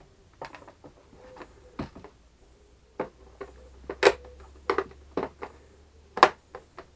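Clicks and knocks of hard plastic and metal being handled, as a perspex panel is fitted into an aluminium camera case, with two sharp, louder clacks about four and six seconds in.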